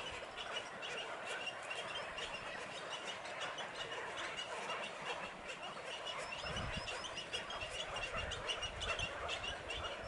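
A colony of waterbirds calling together: a dense chorus of many short, overlapping calls repeating rapidly. A low rumble joins about two-thirds of the way in.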